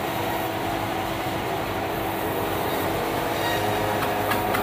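Large band sawmill running with a steady mechanical hum made of several tones, joined about four seconds in by a quick run of sharp knocks and clatter.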